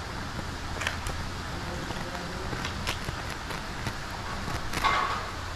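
Utility knife with a new blade slicing through the backing of artificial turf in a few short scratchy strokes, the loudest near the end, over steady low background noise.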